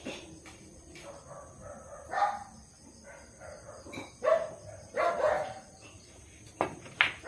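A dog barking a few times, with short calls. Near the end come two sharp clicks from a pool shot: the cue tip striking the cue ball, then the cue ball hitting the object ball.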